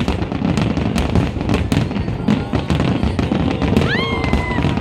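Fireworks display going off continuously: rapid sharp cracks and crackles over a low, dense rumble of bursts. About four seconds in, a whistle rises and holds briefly.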